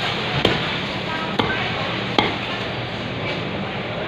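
A large knife chopping through a whole fish on a wooden chopping block: three sharp chops, about a second apart, over steady background din.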